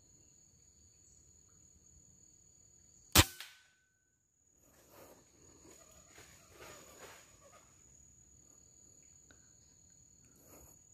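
A single sharp air rifle shot about three seconds in, with a fainter knock a moment after it, then a few seconds of rustling handling noise as the rifle is swung. Insects keep up two steady high-pitched tones underneath.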